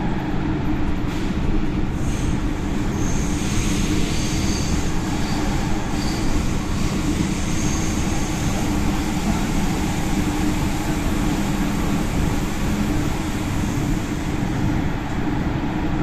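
Athens Metro train heard from inside the car while running: a steady rumble and hiss of wheels on rails with a low hum. Thin high-pitched squeals come and go between about two and nine seconds in.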